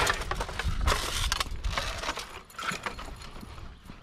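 Scattered knocks, clunks and scrapes of junk such as timber pallet planks being handled and shifted by hand, busier in the first couple of seconds.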